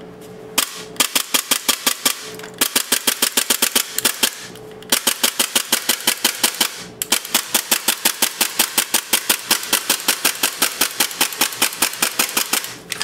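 Tokyo Marui Glock 17 gas blowback airsoft pistol with a UAC ultra-lightweight blowback unit dry-firing, with no BBs, in three long strings of rapid, evenly spaced gas pops and slide clacks. The slide is not fully cycling, which the owner puts down to the magazine running out of gas, though it could be light striking.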